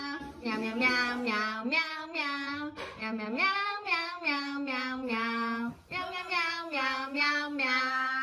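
A high, child-like voice singing a melody, one held note after another, with a brief break just before six seconds in.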